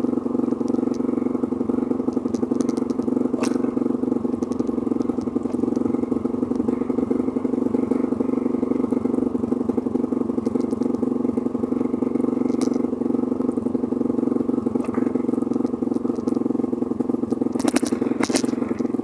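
An engine running steadily at an even speed, with a couple of short clattering clicks near the end.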